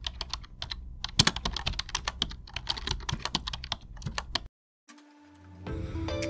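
Keyboard-typing sound effect: a quick, irregular run of sharp key clicks that stops about four and a half seconds in. Background music starts near the end.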